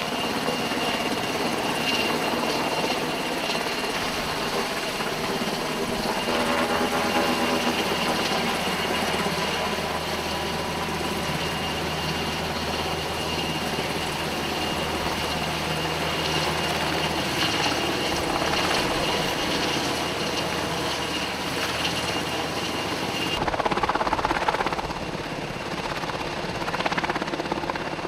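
MH-60S Seahawk helicopter hovering, its twin turboshaft engines and rotor giving a steady low drone with a constant high whine over the rush of rotor wash. About 23 seconds in the low drone drops away and a louder rushing swell follows.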